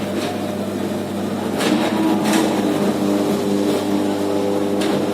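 Electric arc furnace running during a melt: a loud, steady roar under a deep electrical hum, with a few sharp cracks from the arc, the last near the end.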